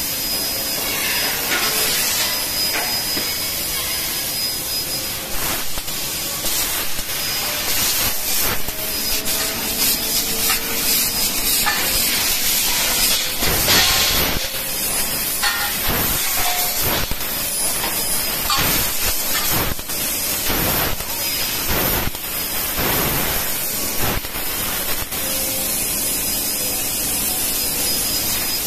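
3 kW fiber laser tube-cutting machine running: a steady hiss, with knocks and clatter scattered through as the square steel tube is fed and clamped in the rotary chuck, and the loudest burst about halfway.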